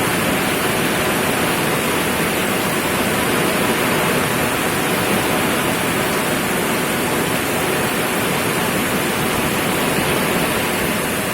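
Steady rain falling, a loud, even hiss with no let-up.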